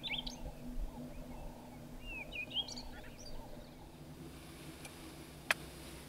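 A small songbird singing: two short phrases of quick, gliding chirps, the first right at the start and the second from about two to three and a half seconds in. After that a faint steady hiss remains, with a single sharp click about five and a half seconds in.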